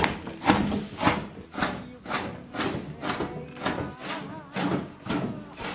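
A steel cleaver chopping raw meat on a wooden cutting board in a steady rhythm, about two chops a second.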